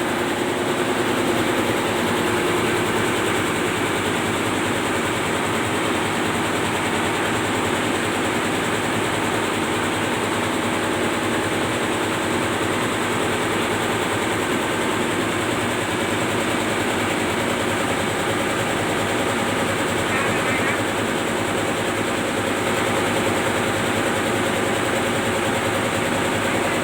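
Large marine diesel main engines of a tugboat running steadily at low revs, heard in the engine room as a loud, even drone with several held tones. At this engine speed the turbocharger whine is not loud.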